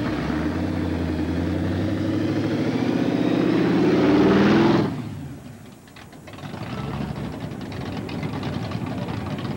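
Modified V8 muscle car engines running as the cars drive slowly past. The engine of a car with a blower scoop on its hood grows louder as it passes close, then cuts off abruptly about five seconds in. After that, another car's engine runs steadily and more quietly as it pulls away.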